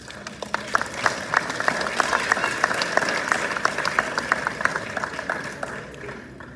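Audience applauding: many hands clapping together, swelling over the first second or so and fading away near the end.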